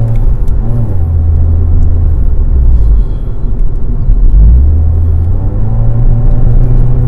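Car engine and road rumble heard from inside the cabin while cornering through a roundabout at about 60 to 70 km/h. The low rumble is steady and loud, with its pitch shifting a little as the driver eases on and off the throttle.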